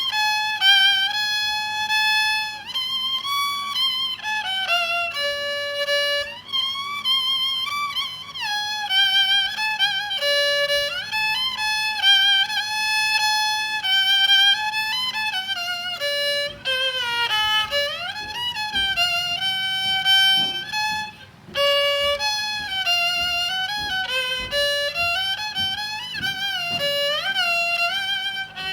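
Đàn nhị (Vietnamese two-string bowed fiddle), a nhị nữ with a trắc rosewood body and monitor-lizard-skin face, playing a single bowed melody full of sliding notes and vibrato. The playing breaks off briefly about three-quarters of the way through.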